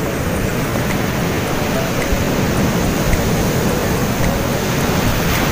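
Steady rush of surf breaking and washing up a sand beach, mixed with wind on the microphone.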